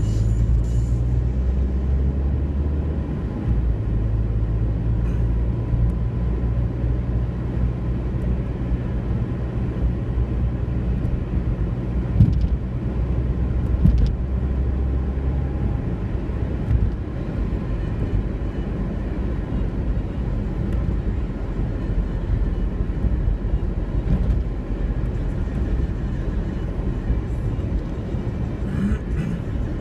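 Motor vehicle running, heard from inside while driving: a steady low engine and road rumble whose low engine tones shift about halfway through, with two brief knocks.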